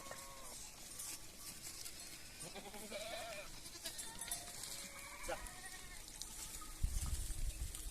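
Goats bleating, three short calls, the clearest a rising-then-falling bleat about three seconds in, with a low rumble near the end.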